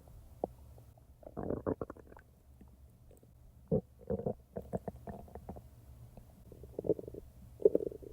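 Human stomach gurgling and rumbling with digestion, in irregular clusters of short bubbly pops. The loudest come near the end.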